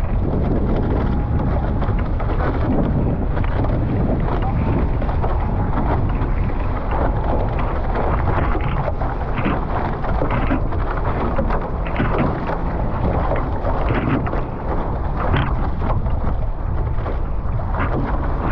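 Wind rumbling heavily on the microphone over water rushing past the hulls of a Nacra 15 sailing catamaran under way, with frequent short splashes.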